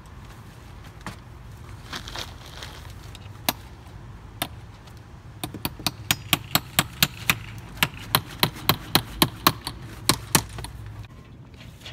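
Sharp knocks from hand work on a house's gable: a couple of single knocks, then a quick run of about four a second for some five seconds, over a steady low hum.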